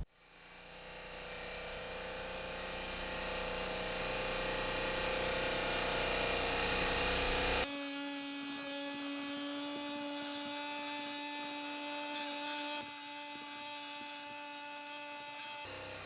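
Graco Magnum airless paint sprayer running: a steady hiss with a motor whine. It builds up over the first several seconds, changes abruptly about halfway through and again near the end, then cuts off.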